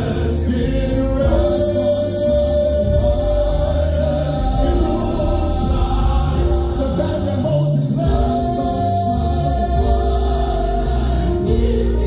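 Music with a choir singing long held notes over deep, steady bass. The sung line moves to a new note every few seconds.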